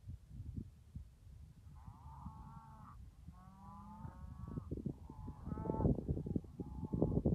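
Farm animals calling: a run of drawn-out calls, each about a second long, over a low rumbling noise that grows louder in the second half.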